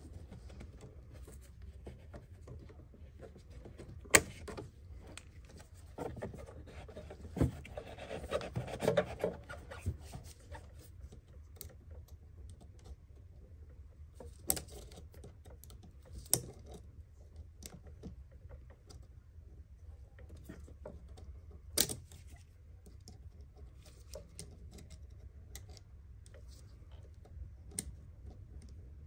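Hand tools and gloved hands working on the hoses and connectors around a car's fuel filter: a few sharp clicks and clacks spaced several seconds apart, with rubbing and rustling around eight to ten seconds in, over a low steady hum.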